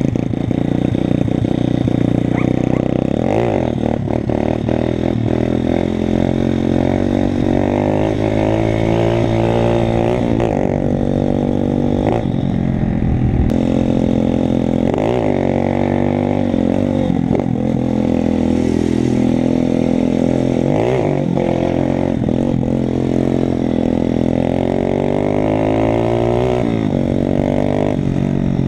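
125 cc pit bike engine revving hard as it is ridden, its pitch climbing under throttle and dropping sharply again and again as the throttle is shut or a gear is changed.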